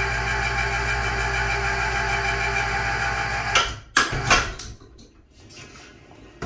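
Overhead electric hoist motor running steadily while it moves a heavy lathe chuck, cutting off abruptly about three and a half seconds in. A few sharp metal knocks and clanks follow.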